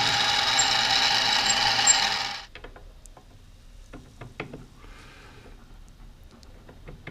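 Bench-top mini milling machine running with a dovetail cutter in the spindle, a steady motor whine that cuts off about two and a half seconds in. Then a few light metallic clicks and knocks as a freshly cut tool holder is handled.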